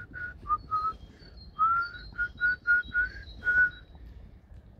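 A person whistling a quick little tune of about a dozen short notes. The notes sit mostly on one pitch, with two lower notes near the start and a slide up in the middle, and the tune stops about three and a half seconds in.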